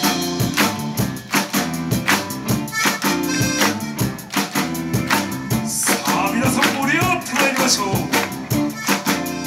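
Live band playing the up-tempo instrumental intro of a mood kayō song on drums, bass, guitars, keyboards and saxophone, with hand claps along on the beat.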